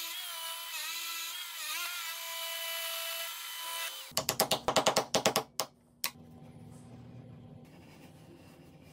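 Drill press motor whining while an 18 mm Forstner bit bores into hardwood, the pitch sagging and recovering as the bit bites. About four seconds in, a quick run of sharp knocks, roughly six a second for a second and a half, then a faint low hum.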